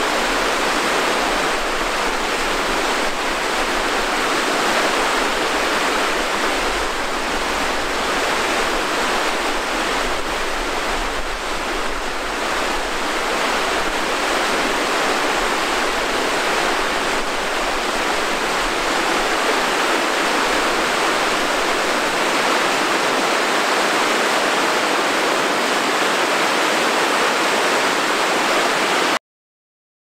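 Fast-flowing river water rushing over rocks in shallow rapids: a loud, steady rush that cuts off suddenly near the end.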